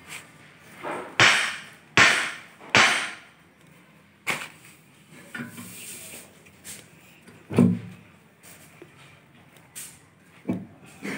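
Long metal digging bar thrust down into a narrow hole in packed soil: three loud strikes in quick succession about a second in, then a few softer knocks and a duller thud later on.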